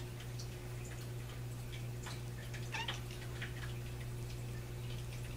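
Black kitten hunting a bug on a wall: faint taps and scratches of its paw against the wall, with a short cat chirp about halfway through, over a steady low hum.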